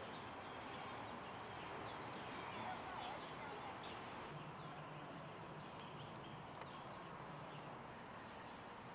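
Small birds chirping and twittering with many short quick calls, over faint steady outdoor background noise.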